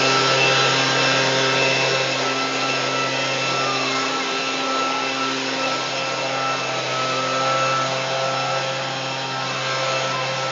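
Leaf blower running steadily, a constant hum and whine over a rush of air.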